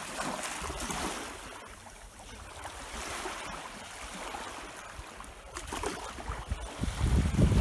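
Small waves lapping on a sandy shore, a steady wash, with wind buffeting the microphone near the end.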